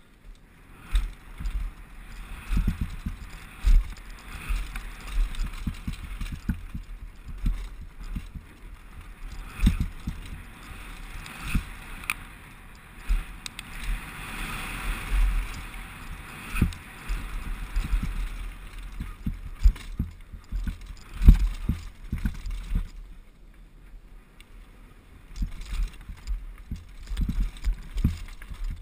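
Specialized Big Hit downhill mountain bike descending a gravel and rock trail, heard from a helmet camera: a steady rush of tyre and air noise with frequent hard thumps and rattles as the bike hits rocks and bumps. The bike goes quieter for a couple of seconds late on, then the rattling picks up again.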